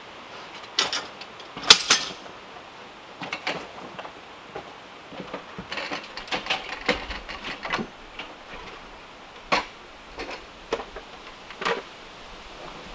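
Pieces of cut wood knocking and clattering together as they are handled in a wheeled cart: a dozen or so irregular sharp knocks, a loud pair about two seconds in and a busy run in the middle.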